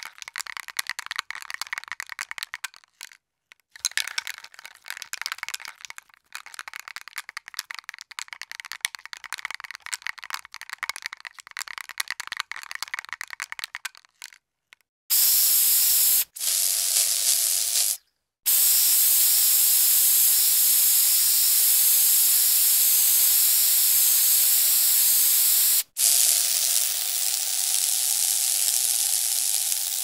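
Aerosol spray paint can shaken hard, its mixing ball rattling in quick clicks for about fourteen seconds with two short pauses. Then the paint is sprayed in four steady hisses: two short ones, then one of about eight seconds and a last of about five.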